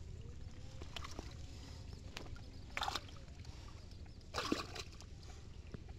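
Water sloshing inside a bamboo polo fish trap as a hand gropes through the shallow, weedy water for fish. There are two short splashes, one about halfway through and another a second and a half later.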